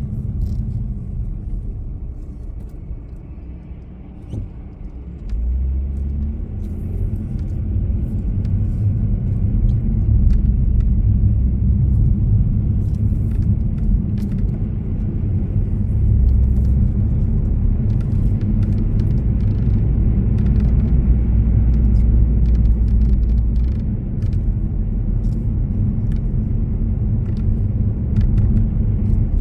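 Steady low road and engine rumble inside a moving vehicle. It eases off about four seconds in, then builds again and holds.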